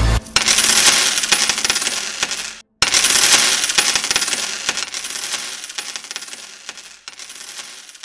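A cascade of coins pouring and jingling, in two runs broken by a brief cut just under three seconds in, fading away toward the end.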